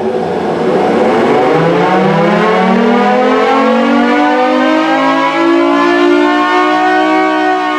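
Federal Signal Thunderbolt 1000T outdoor warning siren winding up on its chopper alone, with the blower off: a loud wail that climbs steadily in pitch and starts to level off near the end.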